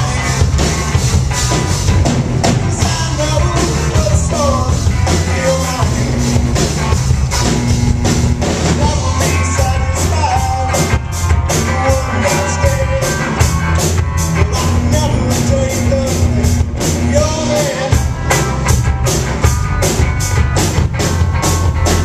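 Rock song with a singing voice over a drum kit and a steady beat.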